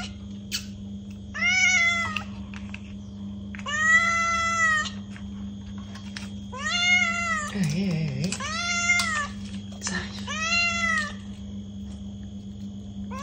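Domestic cat meowing repeatedly: five drawn-out meows about a second or two apart, each rising and then falling in pitch, over a steady low hum.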